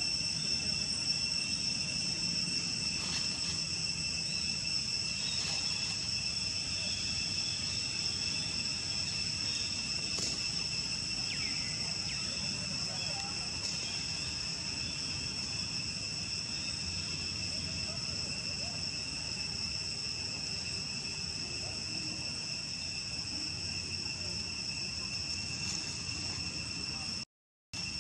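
Insects droning in the trees: a continuous high whine held at a few steady pitches, over a faint low rumble. The sound cuts out for an instant near the end.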